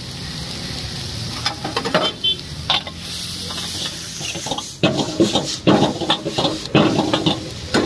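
Metal ladle scraping and clanking against a wok as noodles and vegetables are stir-fried, over a steady sizzle. The ladle strokes start about a second and a half in and come fast and close together in the second half.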